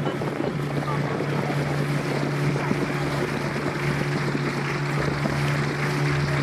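Boat engine running steadily at an even pitch, with wind buffeting the microphone and rushing water noise.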